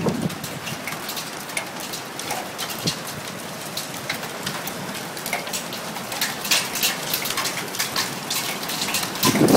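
Hail falling hard: a dense patter of hailstones striking the ground over a steady hiss, growing heavier in the second half.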